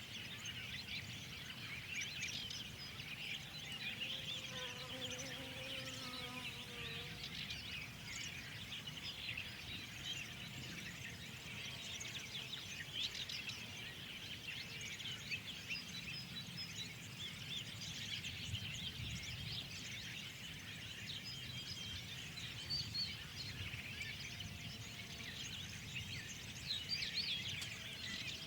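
A dense chorus of many small songbirds chirping continuously in spring, with a few lower calls about five seconds in, over a steady low background rumble.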